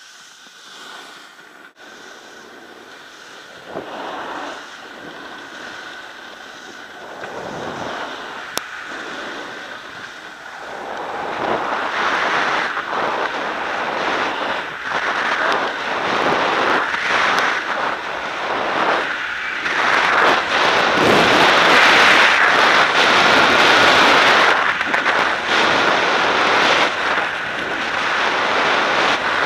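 Wind rushing over the microphone of a body-mounted camera and the hiss of sliding fast on packed snow, growing much louder about a third of the way in as speed builds down the slope.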